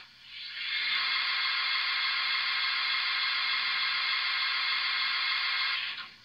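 Sound decoder of a Märklin 37015 H0 model Bavarian S 2/6 steam locomotive playing a steady hiss of escaping steam through its small loudspeaker while the engine stands still. The hiss swells up over the first second, holds level and cuts off near the end.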